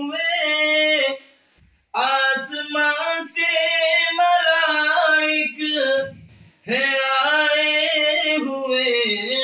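A man singing a naat, an Urdu devotional poem, in long drawn-out notes with no words made out. The singing breaks off twice, briefly, about a second in and about six seconds in.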